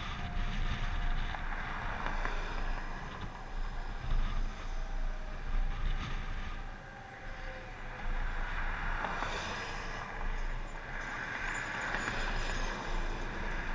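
Outdoor tornado warning siren winding down, its single tone slowly falling in pitch over the first half. In the second half, a car and a semi-truck pass close by on the highway, their road noise swelling twice.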